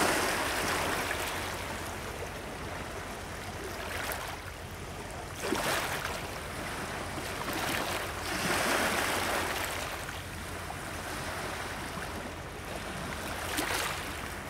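Lake waves crashing and splashing against shoreline rocks close by, swelling and easing in surges every few seconds.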